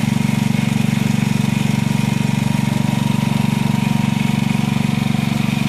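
An engine running steadily at idle, with a fast, even pulse.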